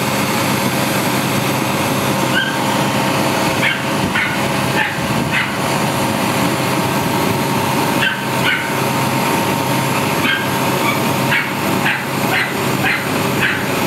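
A dog barking in short, sharp barks that come in runs from about two seconds in, over an engine running steadily as it powers the crane lifting the load.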